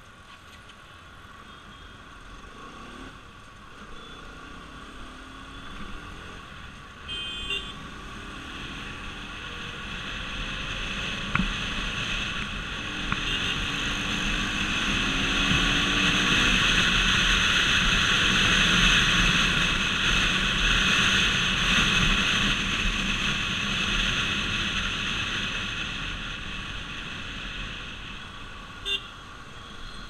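Motorcycle engine and wind rush as the bike rides and speeds up through traffic, getting louder to a peak around the middle and easing off toward the end. Short horn beeps about a quarter of the way in and again near the end.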